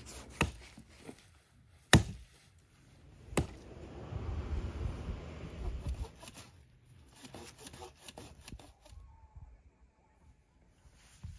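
Firewood being cut from a fallen log: three sharp chopping strikes into the wood, about a second and a half apart, then a few seconds of rough rasping on the wood, as of sawing.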